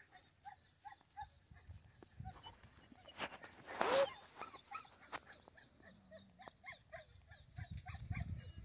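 A dog whining in short, faint whimpers, about two a second, with one louder cry about four seconds in; an excited dog impatient to run.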